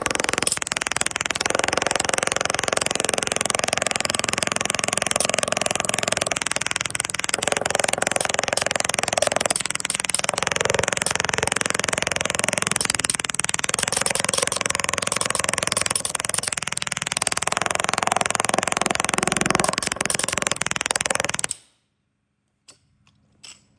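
Pneumatic rivet buster (20 lb air hammer) running continuously, its chisel bit hammering into a wooden board in a fast, dense buzz, its tone changing now and then as it cuts. It cuts off abruptly about 21 seconds in, followed by two faint clicks.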